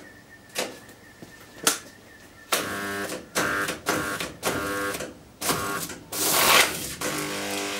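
Bare compressor motor stator with its loose rotor sitting in it on a plastic sheet and no bearings, being energised: a few sharp knocks, then an electric hum that starts and stops several times, with rattling as the loose rotor knocks about, and a loud clattering burst near the end before the hum runs steadily.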